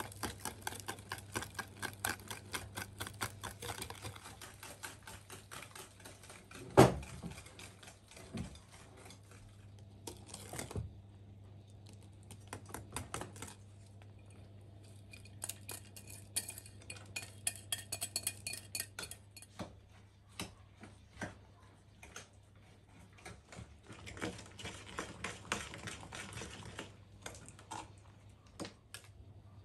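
Wire whisk beating eggs and oil in a glass bowl: fast, even clicking of the wires against the glass, with one louder knock about seven seconds in. After about ten seconds the rapid clicking stops, and scattered clinks and scrapes follow as grated carrots are tipped in and stirred. A low steady hum runs underneath.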